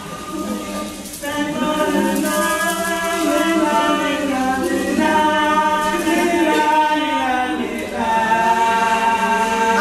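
A group of people singing together without instruments, starting about a second in.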